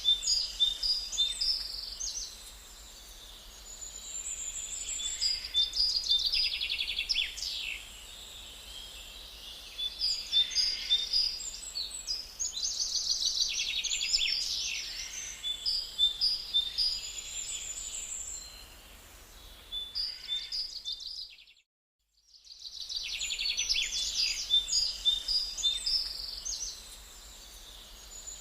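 Songbirds singing, with bursts of trills and chirping phrases every few seconds over a faint background hiss. About three-quarters of the way through, the sound cuts out completely for about a second.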